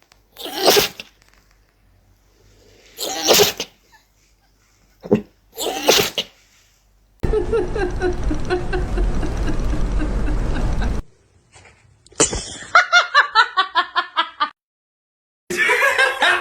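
Three short, sharp sneezes about two and a half seconds apart, followed later by a few seconds of rapid, rhythmic laughter.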